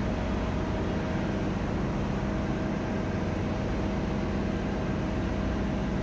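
Steady machinery noise of a ship's engine room, with a faint steady hum and whine running through it.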